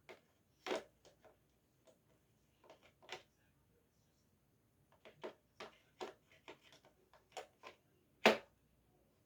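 Irregular clicks and light knocks of a small socket set being handled: sockets and bits tapping against each other and the plastic case, the loudest knock about 8 seconds in.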